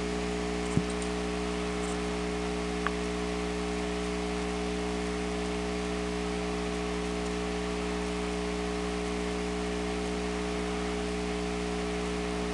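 Steady hum of several fixed tones under a constant hiss, with two short clicks about one second and three seconds in.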